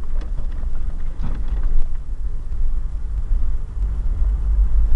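A vehicle being driven, heard from inside the cabin: a steady low engine and road rumble with some unsteady buffeting.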